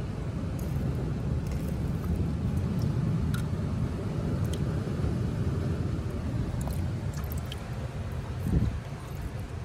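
Steady low rumble of wind buffeting the microphone, with faint scattered clicks and a single thump near the end.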